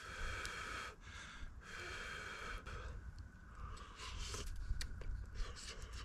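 A man breathing audibly through the nose as he eats, with two long breaths in the first few seconds and fainter ones after. There are a few light clicks of a fork in a titanium mug.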